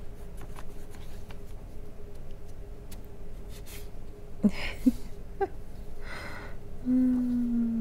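Quiet handling of paper as a greeting card is slid out of its envelope and opened, with a few short soft vocal sounds about halfway through and a held hum near the end.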